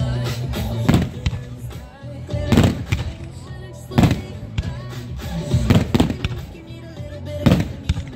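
Aerial firework shells bursting in a run of sharp booms every second or two, several in quick pairs, with music playing underneath.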